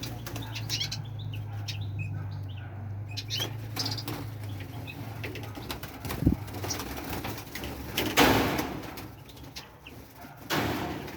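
Birds chirping in short high notes, with wings flapping; two loud bursts of wing noise come about eight and ten and a half seconds in, over a low hum that fades out about halfway through.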